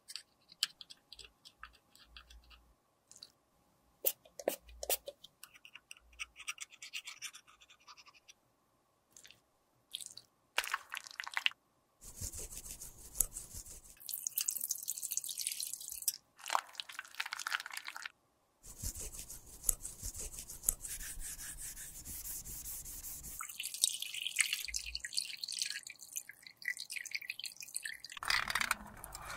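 A metal spatula scrapes and taps inside an empty plastic compact pan with makeup remover gel in it. About twelve seconds in, tap water starts running over the plastic compact into a stainless steel sink, in long spells with short breaks.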